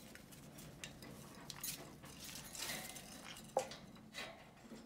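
Faint, scattered clicks, light clinks and rustles from green-cheeked conures moving about their wire cage and its toys, with a slightly louder tap about three and a half seconds in.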